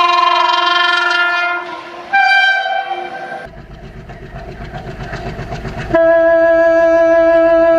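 Indian Railways locomotive air horn sounding a multi-tone blast, then a second short blast with different pitches about two seconds in. Then comes the rhythmic clatter of train wheels over rail joints, and a loud steady tone starts abruptly about six seconds in.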